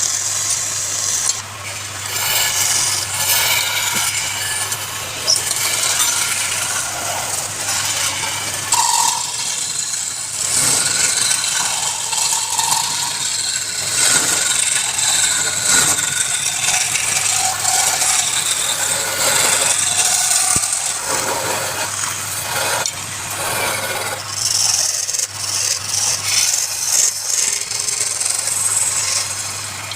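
Wood lathe running while a turning tool cuts and scrapes the spinning wood, an uneven hissing scrape over a low steady motor hum.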